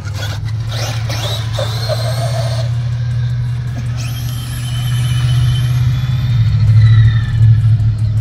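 Electric RC drag cars launching down the lot, their motors giving a high whine that rises and glides from about four seconds in, over a loud steady low hum.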